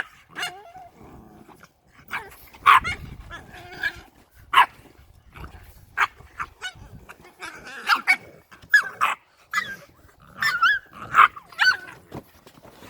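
Bulldog puppies playing, giving short barks and yips with some growling, scattered irregularly; near the end a few calls waver up and down in pitch.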